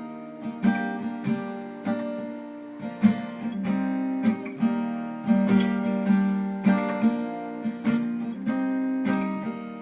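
Guitar strumming a slow, sparse chord pattern without singing, each chord struck and left to ring.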